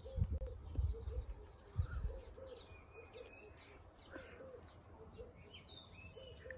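Birds chirping and trilling, with a low call repeating every half second or so. A few low thuds in the first two seconds.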